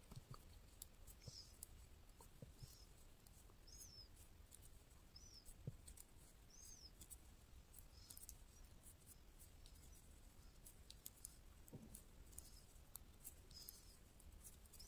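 Near silence with faint, scattered clicks and light scraping of thin metal double-pointed knitting needles as stitches are knitted plain.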